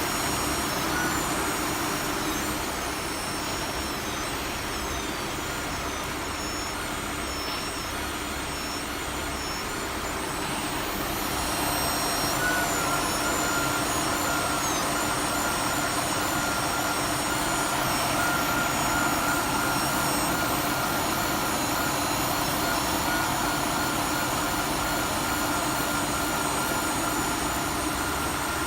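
Nissan Teana's electric power steering making an abnormal noise: a steady whine over a lower hum, louder from about twelve seconds in, with faint high tones that slide in pitch now and then.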